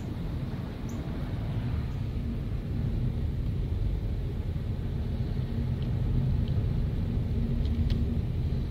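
A car driving on a snow-covered road: a low rumble of engine and tyres that grows gradually louder as it gathers speed, with a steady hum coming in a couple of seconds in.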